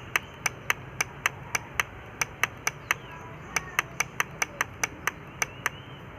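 Rapid, evenly spaced clicking of a digital alarm clock's setting button, about four presses a second, as the alarm hour is stepped up.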